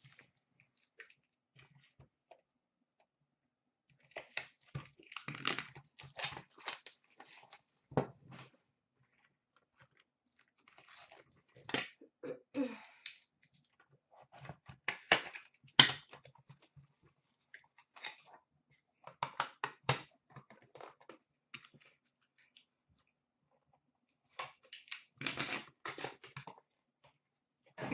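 Hockey card packaging and cards being handled: intermittent crinkling, scraping and clicking as a card box is opened and the cards are pulled out, in several short clusters with quiet gaps between.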